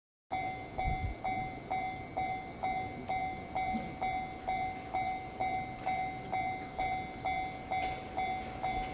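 Japanese railway level crossing alarm ringing, a repeated electronic 'kan-kan' tone at about two strikes a second, cutting in suddenly just after the start.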